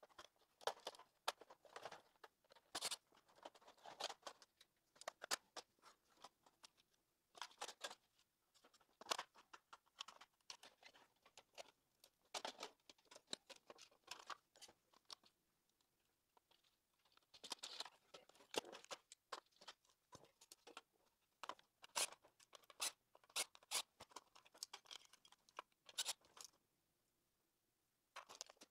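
Irregular clicks, taps and rattles of plastic parts and screws being handled as a Roomba 670's vacuum-motor housing is taken apart by hand with a screwdriver, with a couple of short pauses.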